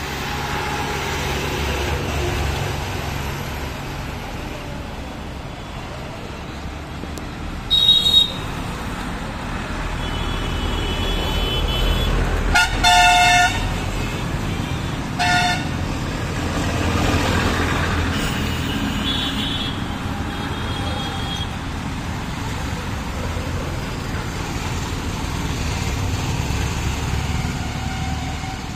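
Passing city traffic of motorbikes, auto-rickshaws, trucks and buses, with vehicle horns tooting: a short loud toot about eight seconds in, a longer stuttering one around thirteen seconds, and a brief one at about fifteen seconds, plus fainter horns later.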